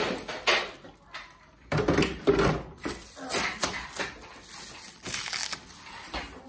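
Plastic wrapping and cardboard packaging being handled, with irregular crinkling, crackling and a few light knocks.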